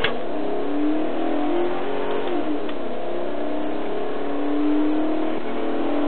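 Patrol car's engine running hard at pursuit speed, heard from inside the cabin, its pitch rising and falling with the throttle. A sharp click right at the start.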